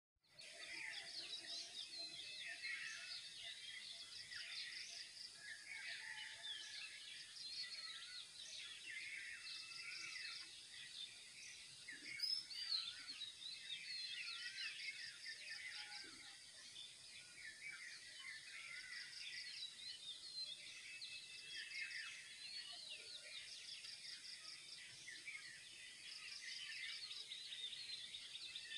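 Dawn chorus of many birds chirping and whistling at once, faint and continuous, with one bird repeating a fast high trill every few seconds.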